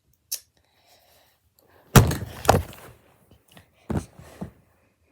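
A sharp click, then a few heavy thuds and knocks of objects being handled and set down, the loudest about two seconds in.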